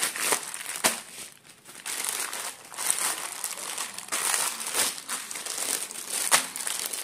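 Thin plastic packaging of rubber gloves crinkling and rustling as it is pulled open and handled, with a few sharp crackles and a brief lull about a second and a half in.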